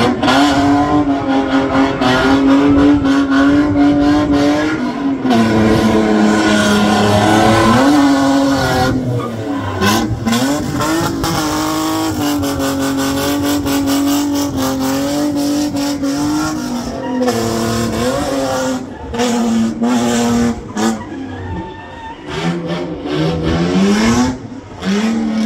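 Drift car's engine held at high revs through a slide, over the hiss of sliding tyres. The revs dip briefly a couple of times and climb again near the end.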